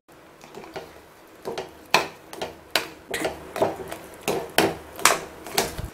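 A spoon stirring thick semolina and papaya kesari in a stainless steel kadai, knocking and scraping against the pan about twice a second.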